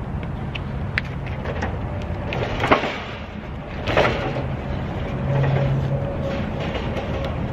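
Steady hum of vehicle traffic, with a few knocks and thuds as cardboard boxes of floor tile are lifted off a metal flatbed cart and set into a car's back seat. The loudest knocks come near the middle.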